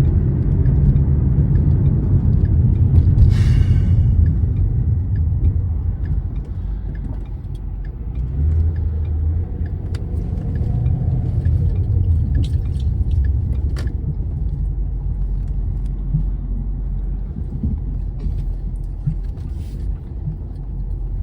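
Low, steady rumble of a 2011 Mustang GT's 5.0 V8 and its road noise, heard from inside the cabin as the car moves slowly, on its stock mufflers. A brief hiss sounds about three seconds in.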